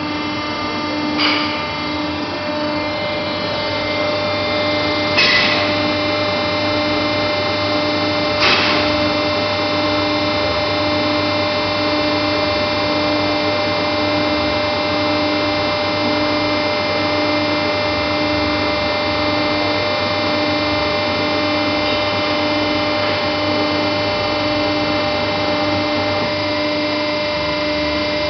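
Haco hydraulic guillotine shear's power unit running with a steady hum of many tones and a regular pulsing tone. Three short clacks come in the first nine seconds.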